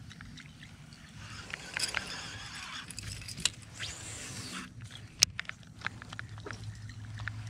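Baitcasting rod and reel being handled and cast: small clicks from the reel, a whir of line paying off the spool during the cast around four seconds in, then a sharp click about a second later as the reel is engaged. A steady low hum runs underneath.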